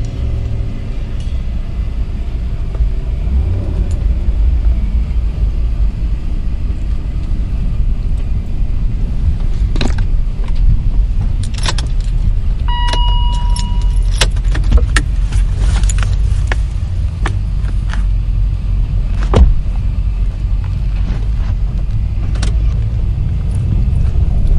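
Steady low rumble of a vehicle's engine and tyres, heard from inside the vehicle while it drives along a road. Light rattles and clicks come and go through the middle, and a short beep sounds about halfway through.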